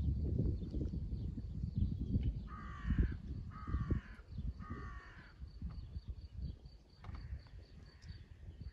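A crow cawing three times, about a second apart, over a low rumble that is loudest in the first few seconds.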